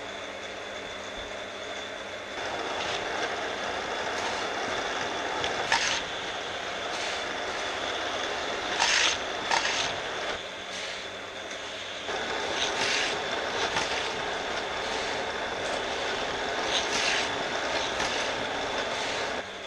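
Battery-powered Hot Wheels track boosters whirring steadily with a high whine while die-cast cars run laps of the plastic orange track. A short, sharp rush sounds about five times as cars pass through the boosters.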